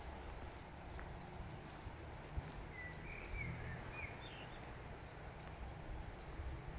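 Faint birdsong: a few short, high chirps scattered through the middle, over a low steady rumble, with one soft knock about two and a half seconds in.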